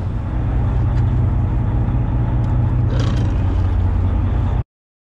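Fishing boat's engine running steadily under way, a deep low drone. It cuts off suddenly about four and a half seconds in.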